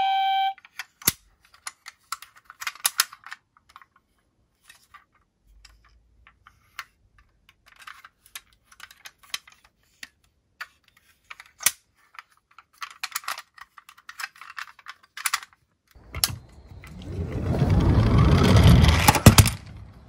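Light clicks and taps of a die-cast toy police van being handled, its plastic rear hatch opened and fiddled with. Near the end a rushing noise swells for about three seconds and then cuts off.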